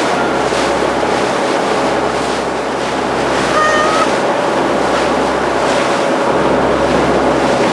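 Wind buffeting the microphone and water rushing past the bow of a boat under way, a steady loud rush with a deep rumble underneath.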